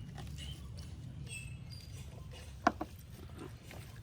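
Eating sounds during a spicy egg curry and rice eating race: small wet clicks and taps of chewing and of rice being mixed on a plate, with one sharp click about two-thirds of the way in, over a steady low hum.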